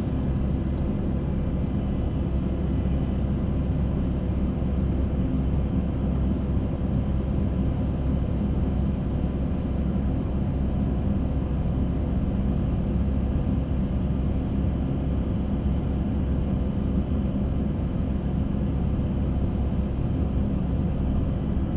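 Concrete mixer running steadily: an even, low engine drone with faint steady tones above it, unchanging throughout.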